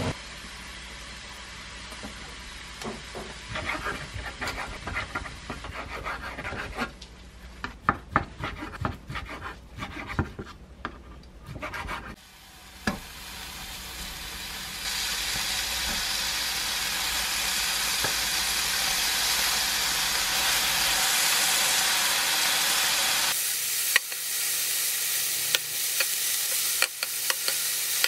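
A kitchen knife taps and scrapes irregularly on a wooden cutting board as onion is finely chopped. About halfway through, beef starts sizzling steadily on a hot grill pan alongside grilled vegetables. Near the end come a few sharp clicks of metal tongs turning the meat against the pan.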